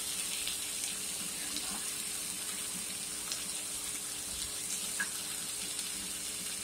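Raw 80/20 ground beef searing in a hot cast-iron skillet: a steady sizzle with a few faint pops.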